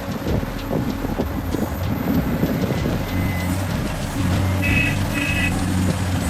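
Heavy diesel earthmoving machinery running steadily, with clattering knocks of dirt and rock in the first half. About four seconds in the engine note rises, and a reversing alarm beeps twice.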